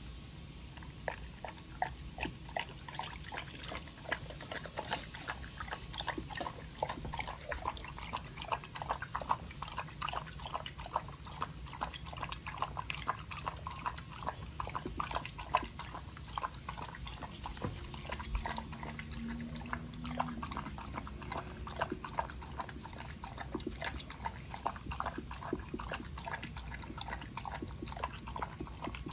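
A kelpie lapping carrot juice from a small glass bowl: a fast, steady run of wet tongue laps and slurps, with no break.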